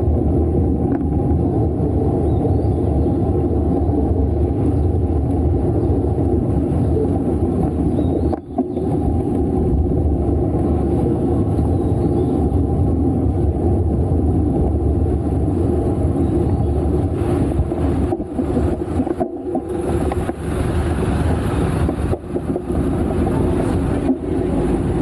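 Wind rumbling steadily on a handlebar-mounted action camera's microphone as a road bicycle is ridden through the street, with tyre noise underneath. It drops away briefly about eight seconds in and turns rougher and choppier in the last several seconds.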